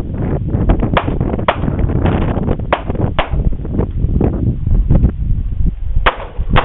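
Handgun shots fired in quick pairs, about half a second apart, three pairs in all, the double-taps of a practical pistol stage. A heavy low rumble of wind buffets the microphone underneath.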